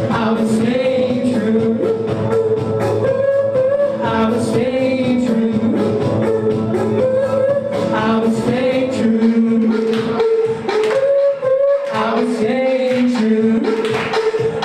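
A song with singing over sustained backing notes.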